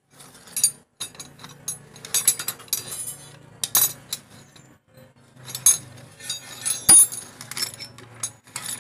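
Irregular metallic clinks and taps of hand tools against a Yamaha Mio Sporty scooter's cylinder head during a tune-up, with one sharper clink about seven seconds in.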